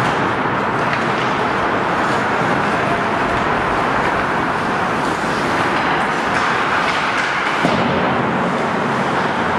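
Steady, even noise of ice hockey play in an indoor rink, with skates on the ice and no clear single event standing out.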